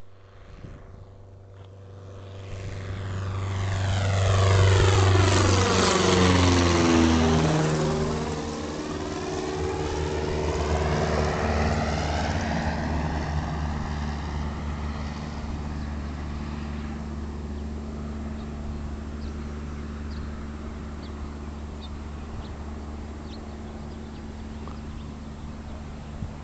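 Darter 100 light propeller aircraft flying past: its engine drone grows louder, peaks about five seconds in with a sweeping, phasing sound and a drop in pitch as it goes by, then fades slowly as the plane flies away.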